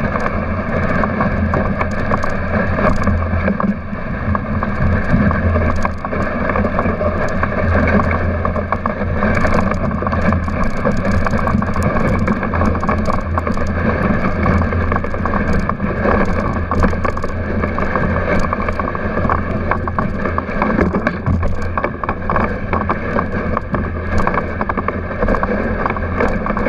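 Dogsled running along a snowy trail: a steady rushing of the runners over snow with a low rumble and a constant rattle of small knocks from the sled.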